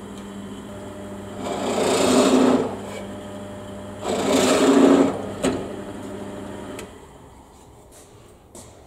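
Electric power tool motor running steadily, loading up in two louder passes about a second long each, then switching off about seven seconds in; a few light clicks follow near the end.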